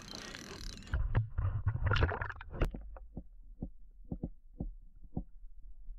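Water hiss, then from about a second in, muffled underwater sound through a submerged camera: a low rumble with thuds, followed by a string of sharp clicks and knocks about two a second over a low hum.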